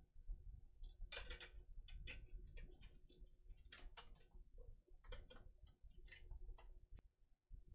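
Faint, irregular clicks and taps of a plastic CD jewel case being handled, with a sharper click near the end.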